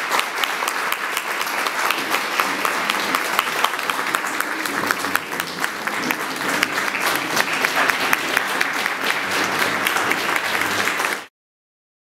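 Audience applauding: many hands clapping in a steady, dense patter that cuts off suddenly near the end.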